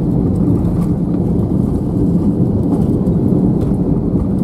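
Steady low rumble inside the cabin of an Airbus A320-214 with CFM56 engines rolling along the ground after landing: engine and rolling noise heard from a window seat.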